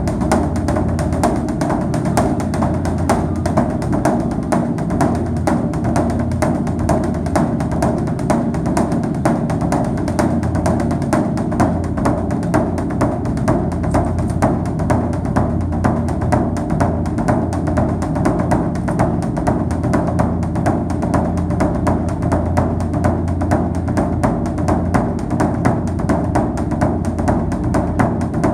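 Background music with fast, steady percussion strikes over a sustained low tone.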